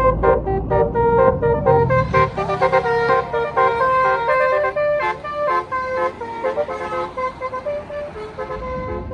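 Tour bus 'telolet' Basuri musical air horn playing a fast tune of short notes at changing pitches. A low engine rumble underneath drops away about two seconds in, and the tune gets quieter near the end.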